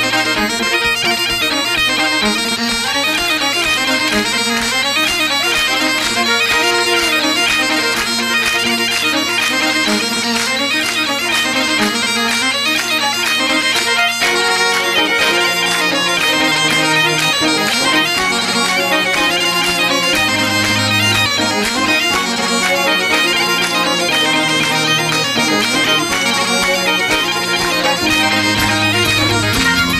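Background Scottish traditional music: a melody over steady held drone notes.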